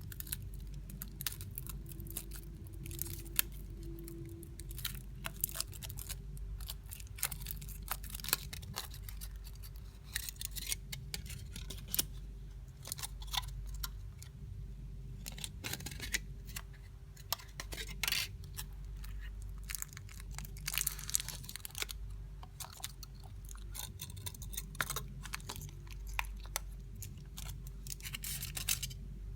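Crinkling and tearing of a Kinder Surprise egg's foil wrapper being opened by hand, with many irregular small clicks and rustles, over a steady low hum.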